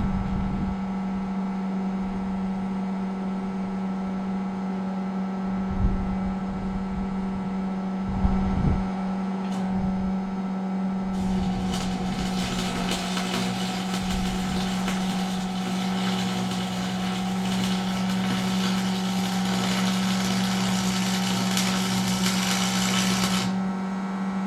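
Lincoln AC-225 stick welder humming, with a couple of knocks, then about 11 seconds in the arc strikes and crackles steadily for about twelve seconds before breaking off. The welder is on a turned-down setting after being a tad too hot, and the weld is doing a lot better.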